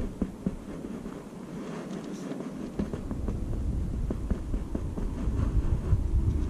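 Wind buffeting the camera microphone, getting much stronger about three seconds in, with scattered crunches and clicks of footsteps on the rocky, pebbly shore.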